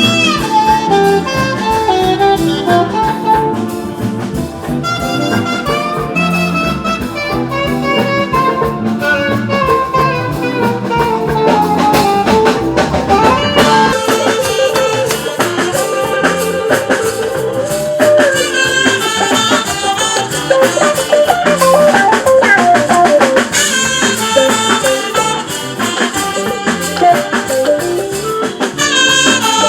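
Instrumental band music: a horn melody over a drum kit, playing without a break.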